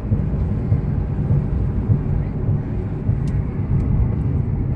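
Steady low rumble of road and wind noise inside a moving car with the sunroof open.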